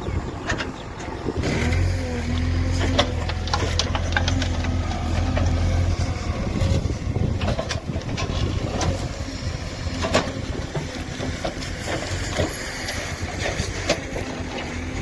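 JCB 3DX backhoe loader's diesel engine running steadily, its low hum strongest for the first several seconds, with scattered knocks and clanks throughout.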